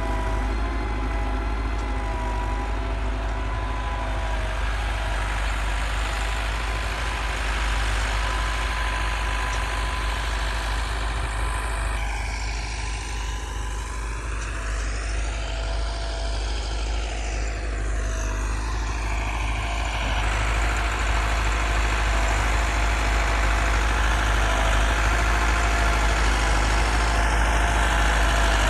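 Massey Ferguson 385 tractor's diesel engine running steadily while ploughing, with a sweeping change in tone partway through.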